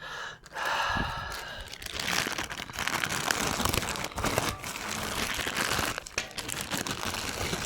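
Plastic packaging crinkling and rustling, with some tearing, as a package is opened by hand and its contents pulled out.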